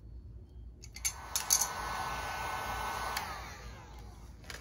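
Electric heat gun switched on with a few clicks about a second in and running with a steady whir for about two seconds. It is then switched off, its fan pitch falling as it winds down. It is shrinking tubing over a ring connector on a heavy battery cable.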